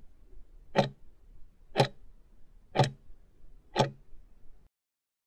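Clock-like ticking of a quiz countdown timer sound effect, one sharp tick each second, four ticks as the count runs down to zero, then it stops.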